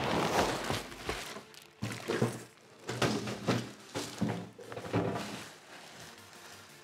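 Plastic wrapping crinkling as a stainless steel pizza oven is lifted out of its cardboard box, then several dull thunks and knocks as the oven is handled and set down, fading off near the end.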